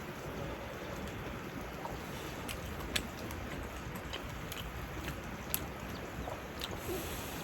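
Mountain stream flowing steadily, with a few short sharp clicks over it, the two loudest about three and five and a half seconds in.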